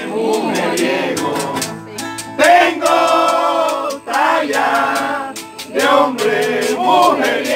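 Live vallenato-style paseo: a male vocal trio singing in harmony over strummed acoustic guitars, in sung phrases with brief breaks between them.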